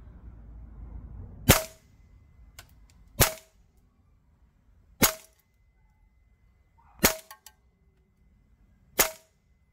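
Double Eagle Noveske N4 gas blowback airsoft rifle running green gas, fired in five single shots about two seconds apart.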